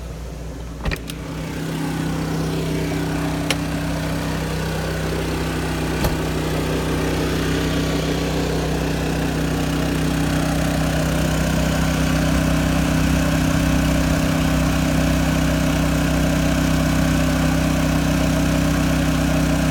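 Champion 3400-watt dual-fuel inverter generator running steadily on gasoline while carrying a 15,000 BTU RV air conditioner. It grows louder over the first couple of seconds, after a couple of clicks about a second in, and then holds an even hum.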